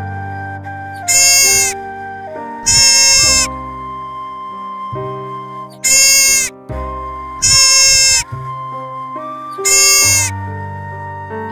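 Five short bleats at irregular intervals over background music with slow, held notes.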